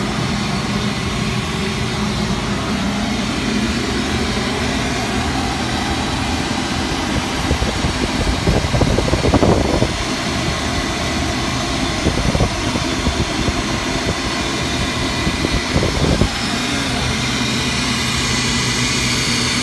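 Loud, steady drone of ship's engine-room machinery with the heavy fuel oil purifier (centrifugal separator) running close by: a dense rushing noise over a steady low hum. A rougher, louder rushing breaks in about eight seconds in for a couple of seconds, and briefly twice more later.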